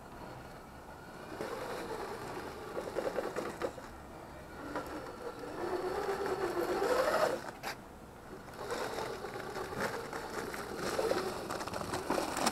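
Scale RC crawler truck's electric motor and geared drivetrain whining as it drives and climbs over rocks, the pitch rising and falling with the throttle, dropping out briefly about seven and a half seconds in.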